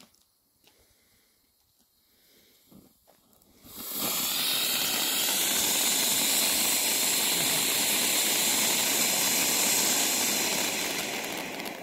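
Vulcan Fire Sphinx ground fountain firework: the fuse burns with little sound, then about four seconds in the fountain ignites and sprays sparks with a steady, loud hiss that eases slightly near the end.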